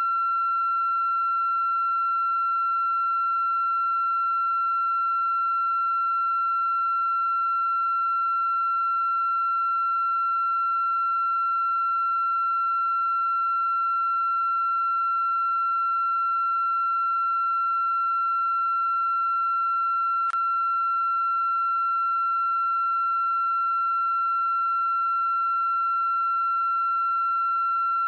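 A steady high-pitched electronic tone held without a break, with a single brief click about twenty seconds in.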